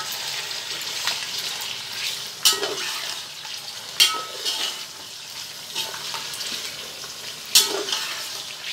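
Boiled meat pieces sizzling in hot oil with fried onions in a steel pot as they are sautéed (bhuna), stirred with a metal spatula that scrapes and knocks against the pot a few times, sharpest about four and seven and a half seconds in.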